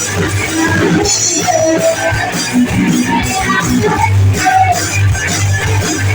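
Live band playing a song: guitars strummed over a steady bass line and drums with cymbals.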